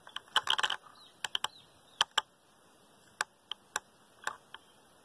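Irregular sharp clicks and ticks: a quick cluster in the first second, then single clicks every half second or so, thinning out toward the end. There is no loud shot report among them.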